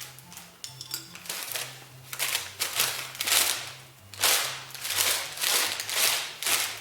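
A run of sharp, rattling strokes, about two a second and louder in the second half, over background music with a low stepping bass line.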